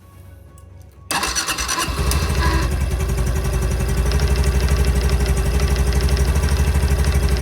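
Honda Super Cub C125's air-cooled single-cylinder engine started, with a harsh, high-pitched noise for about a second and a half, which is the start-up noise the owner takes for abnormal. It then settles into a steady, evenly pulsing idle.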